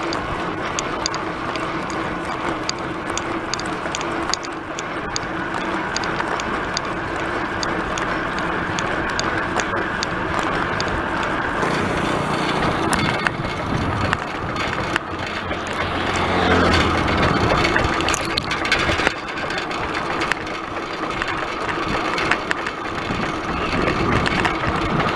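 Steady road and wind noise from a bicycle rolling along a paved road, with light regular ticking in the first few seconds. Motorcycle engines pass, one rising and falling in pitch about two-thirds of the way through.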